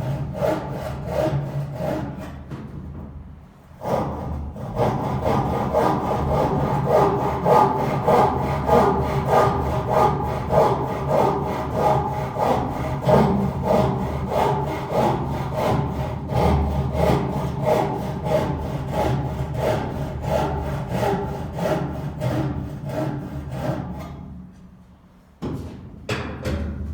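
Hand saw cutting through wood in steady back-and-forth strokes, about two a second, with a brief pause about three seconds in. The sawing stops near the end.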